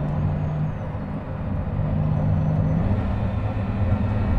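Engine of the Pagani Huayra Roadster BC, a twin-turbo V12, running at a steady cruise: a low drone that grows a little louder about a second and a half in.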